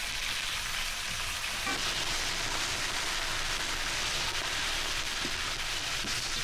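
A steady hiss with no change in loudness.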